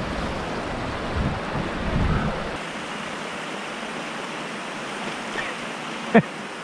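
Stream water rushing steadily, with a low rumble underneath that drops away about two and a half seconds in. A short sharp sound stands out near the end.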